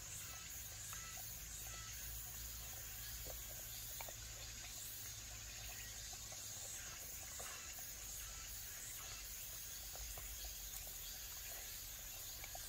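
Dogs licking and chewing food from a hand, with faint scattered smacking clicks, over a steady background of insects chirring.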